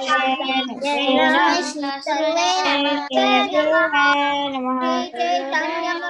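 A young girl singing devotional prayers solo, in phrases of held, gliding notes with short breaths between them. The voice comes through a video call.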